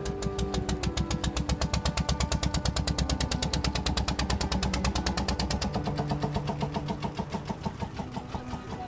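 Diesel engine of a wooden passenger ferry boat chugging with a fast, even knock, slowing in the last few seconds as the boat comes up to the bank.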